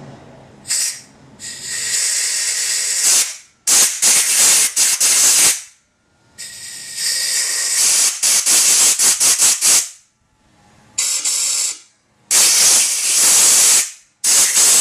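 Compressed-air blow gun blasting into the main stud bolt holes of an SR20DET engine block, a loud hiss in about six bursts of one to three seconds, some of them choppy. It is clearing brake parts cleaner and debris out of the threaded holes.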